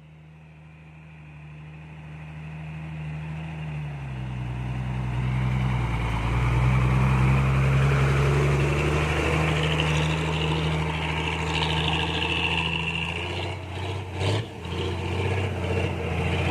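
Diesel engine of a yellow Isuzu Deca six-wheel truck drawing near and working under load, growing louder over the first several seconds. Its pitch drops about four seconds in, and it runs steadily after that, with a short knock near the end.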